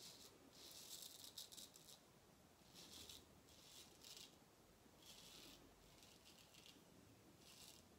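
Razor blade scraping stubble through shaving lather on the neck: faint, short scratchy strokes with brief pauses between them, the longest run of strokes about a second in.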